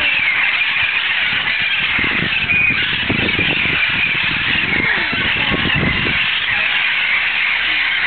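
A large flock of wild parrots screeching and squawking continuously, a loud, dense chorus of many overlapping calls. A low rumble joins in from about two to six seconds in.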